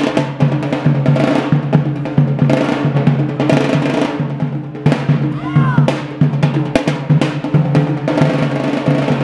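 Yemeni bara' drumming: the tasa, a skin-covered copper bowl drum, struck in fast rolling strokes with two sticks over the steady, deep beat of the marfa' bass drum.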